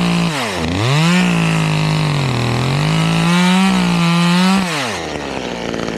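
Two-stroke chainsaw running at full throttle and cutting into wood, its engine note dipping twice under the load of the cut. A little before the end the throttle is released and it drops to a quieter, lower running note.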